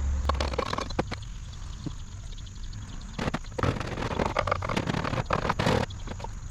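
Parts of an old cast-iron wood lathe and tools being handled during disassembly: a few sharp knocks and clinks, then about two seconds of scraping and rattling.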